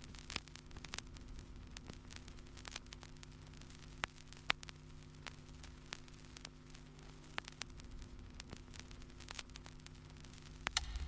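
Faint steady electrical hum with scattered crackling clicks, like static.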